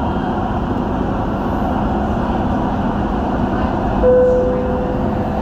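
Dubai Metro train running between stations, heard from inside the carriage: a steady rumble of wheels and running gear, with a brief steady whine about four seconds in.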